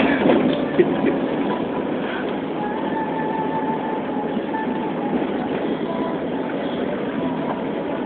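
Steady running noise of a moving road vehicle heard from inside it: engine, tyres and wind together, with a couple of sharp knocks in the first second.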